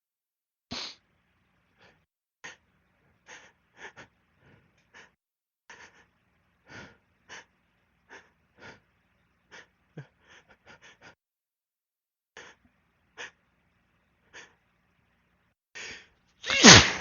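A person building up to a sneeze: a long run of short, catching breaths at uneven intervals, then one loud sneeze near the end.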